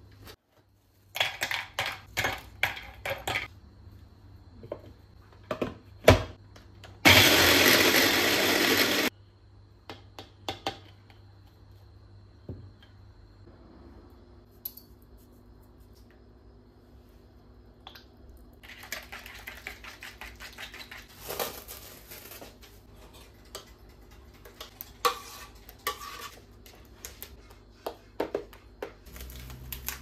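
Plastic parts of a small electric food chopper clicking as they are fitted together, then the chopper running for about two seconds, the loudest sound, and cutting off suddenly. Scattered kitchen clatter follows.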